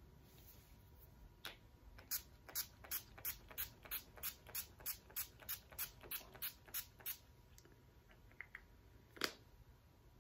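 Pump-action setting spray bottle spritzed at the face over and over, about seventeen short hissing sprays at roughly three a second, then a single louder burst near the end.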